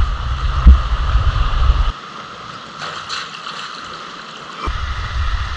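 A rocky stream's water rushing steadily, with low wind rumble on the microphone that drops away for about three seconds in the middle. There is a dull thump near the start.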